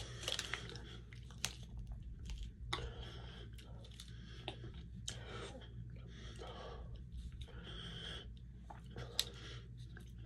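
A person chewing and crunching on an Oreo ice cream cone, with irregular soft crunches and clicks of biting.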